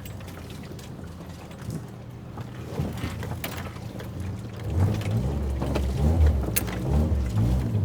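Car engine pulling on a rough off-road trail, a steady low hum that gets louder and rises and falls in pitch from about five seconds in as the throttle is worked, with a few sharp knocks from the underside or body striking rocks.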